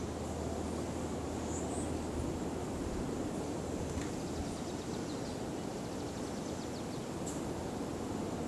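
Steady outdoor ambience: an even low rushing noise with a faint hum underneath, a few faint high chirps, and a brief faint rapid ticking near the middle.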